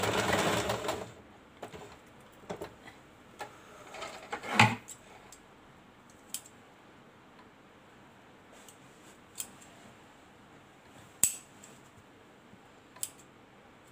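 Domestic electric sewing machine running for about a second, then stopping. Scattered small clicks and taps follow, the loudest about four and a half seconds in.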